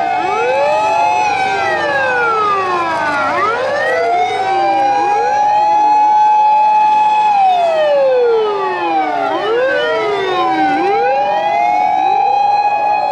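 Several fire engine sirens wailing at once and out of step: each rises in pitch, holds, then slides down, so the wails overlap without a break.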